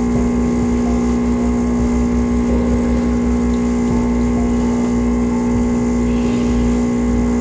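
ULKA vibratory pump of a Gemilai CRM3007L espresso machine running with a steady hum while pulling a shot, cutting off suddenly near the end as the extraction stops.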